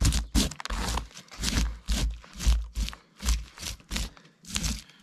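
Knife blade scraping scales off a whole whitefish in quick repeated strokes, each a short crisp rasp with a low thud under many of them.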